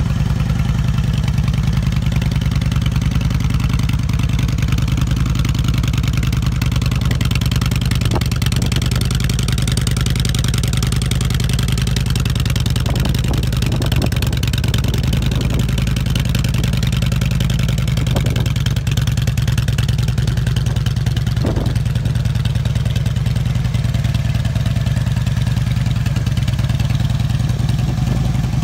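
Harley-Davidson Street Glide's Twin Cam 96 V-twin idling steadily.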